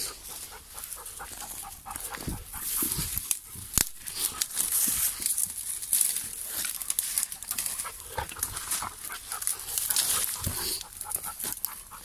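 Dry twigs, branches and dead leaves crackling and rustling as someone pushes through dense forest undergrowth, with a dog moving through the brush close by.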